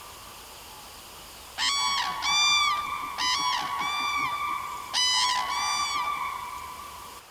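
Geese honking repeatedly in short runs of two or three calls, starting about a second and a half in.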